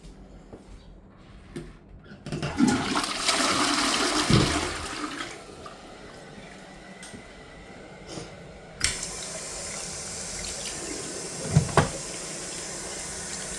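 Toilet flushing: a loud rush of water starts about two seconds in and dies down over a few seconds, then a steady hiss of running water sets in and continues, with two sharp knocks near the end.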